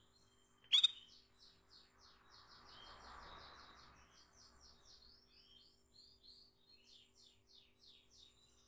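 Female canary calling: one sharp, loud call about a second in, followed by a long run of quick repeated high chirps.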